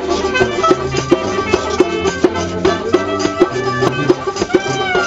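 Folk band playing a tune on hand drum and banjo, the drum keeping a steady quick beat of about three strokes a second under held melody notes.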